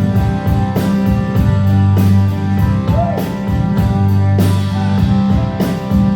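Rock band playing live, an instrumental passage with guitar, bass and drum kit keeping a steady beat.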